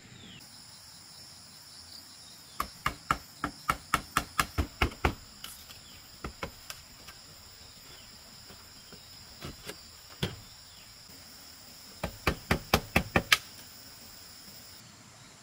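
Sharp knocks of a machete chopping into a bamboo pole: a quick run of about ten strikes, a few single blows, then another fast run of about seven near the end. A steady high insect drone runs underneath.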